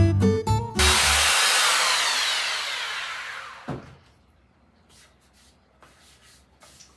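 Guitar music breaks off under a second in. A power sander then comes in loud and winds down after being switched off, its whine falling and fading over about three seconds. A few faint knocks follow.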